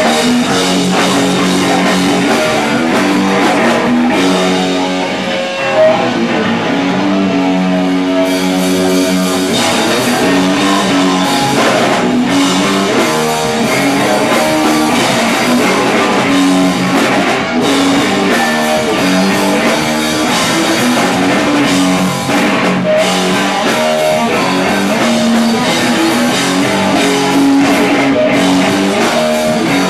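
Hardcore punk band playing live: distorted electric guitars, bass and drum kit. The sound thins out briefly about five seconds in, then the full band comes back in.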